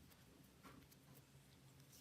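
Near silence: a faint steady low hum with a soft scrape about two thirds of a second in.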